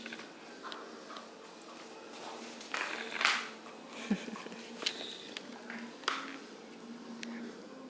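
Beagle puppy playing with a fabric toy on a concrete floor: scattered faint rustles, taps and clicks, the loudest a rustle about three seconds in.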